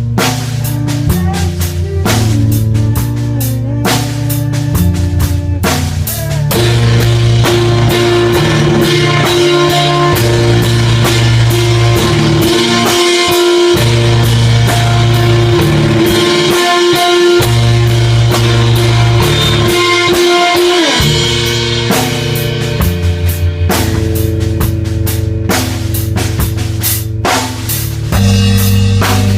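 Rock band music led by a drum kit, with bass and guitar. From about six seconds in, the band fills out into a denser section over a held note, and the sparser, drum-driven pattern comes back a little past twenty seconds.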